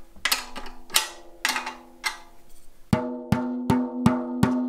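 A 10-inch tom's resonant head is tapped lug by lug with a drumstick while being tuned. The first taps ring at mixed pitches; from about three seconds in, a run of evenly spaced taps rings at one steady pitch, about a B, as the head comes even.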